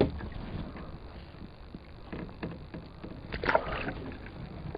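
Small splashes and knocks against a plastic kayak hull as a caught sunfish is handled over the water. A sharp knock comes right at the start, and the loudest splashing comes about three and a half seconds in.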